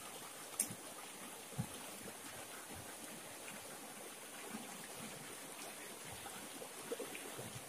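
Shallow river water running and splashing over stones, with a few short, sharp clicks and scrapes from knives scaling and cleaning fish at the water's edge.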